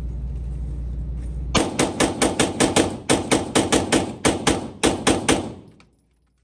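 Rapid semi-automatic gunfire in a magazine dump: about two dozen shots at roughly six a second, with a brief pause about halfway, after a steady low rumble for the first second and a half.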